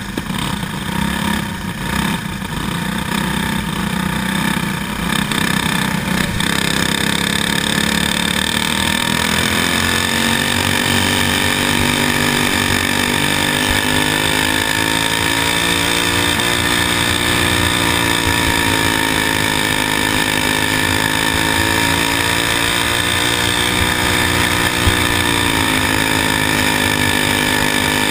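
Racing kart engine at race pace, heard on board: uneven and rough for the first few seconds through the turn, then a steady high-revving note whose pitch slowly rises and falls, with a brief dip near the end.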